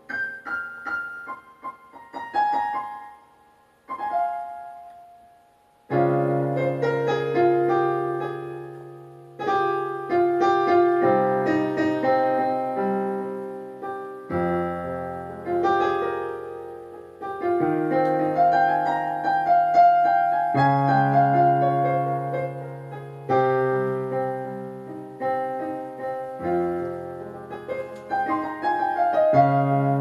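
Solo piano played on a small micropiano keyboard: a few scattered high notes at first, then from about six seconds in slow, full chords over a low bass line.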